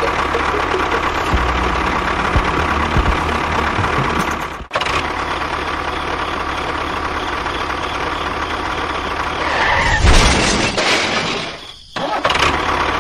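A machine's motor running steadily. It cuts off abruptly about four and a half seconds in and again near the end, picking straight back up each time, and is briefly louder shortly before the second cut.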